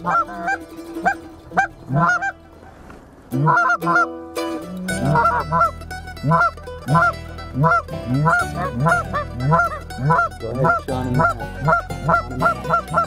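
Canada goose honks and clucks in a rapid series, with a short lull about two seconds in, then a faster run of two to three honks a second from about five seconds on.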